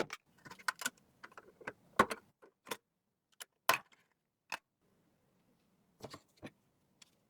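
Irregular sharp clicks and taps of computer parts being handled and fitted during PC assembly, the loudest about two and nearly four seconds in.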